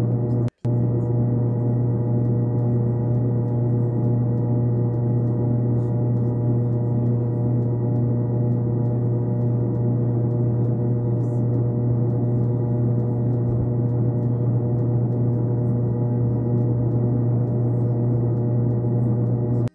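A steady, unchanging low drone made of many held tones, ringing like a sustained gong, that drops out for an instant about half a second in.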